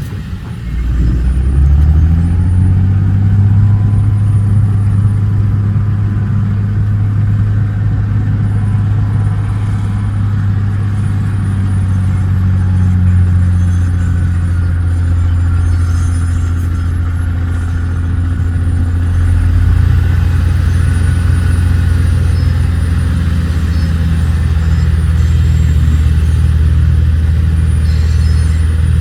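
Dump truck's diesel engine revving up about a second in, then running steadily at raised speed.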